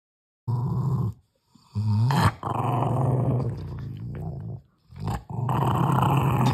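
Rottweiler's low rumbling growl, in several long drawn-out stretches with short breaks and a brief rise in pitch about two seconds in, made while she is cuddled and petted. It is the breed's affectionate "rumble", not an aggressive growl.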